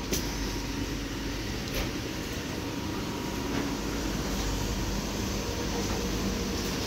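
Steady background noise of an airport lounge, with a faint steady tone and a few light clicks about a second and a half apart early on.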